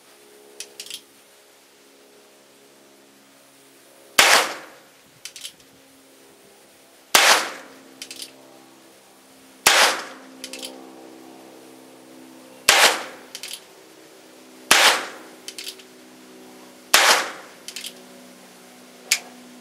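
Six shots from a Phoenix Arms HP22A .22 LR semi-automatic pistol, fired slowly at two to three second intervals. Each report is followed about a second later by a few faint ticks, and a smaller click comes near the end.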